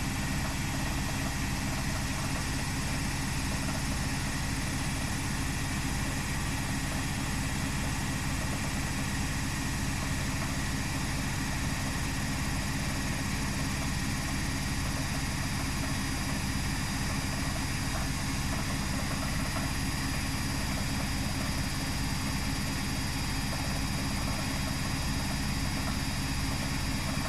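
Front-loading washing machine spinning its drum at high speed in the spin cycle: a steady motor hum with a constant pitch.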